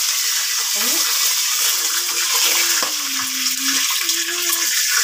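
Peeled boiled eggs frying in hot cooking oil in a pot, a steady, loud sizzle.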